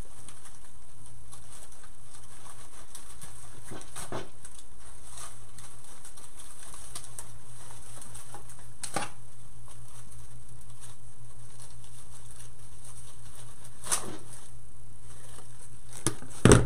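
Faint rustling and a few sharp clicks of artificial floral stems and wire being worked into a wreath with wire cutters, over a steady low hum; a louder knock comes near the end.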